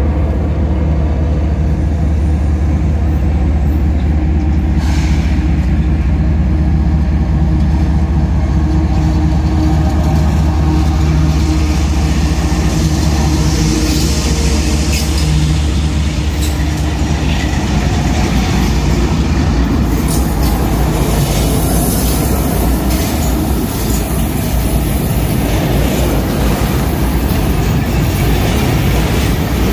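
Freight train passing close by. The diesel locomotives go by first with a deep, steady engine drone, and then, from about two-thirds of the way through, the hopper cars roll past with a noisy rumble and many small knocks from the wheels on the rails.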